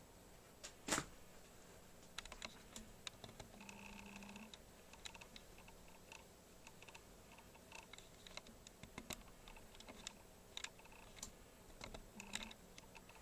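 Keys being pressed on the StarWriter Pro 5000's keyboard: irregular, faint key clicks with pauses between them, one louder click about a second in. A brief faint tone sounds about four seconds in.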